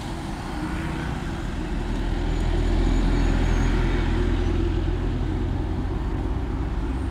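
Road vehicle noise: a steady low rumble that swells about two seconds in and eases off slightly toward the end.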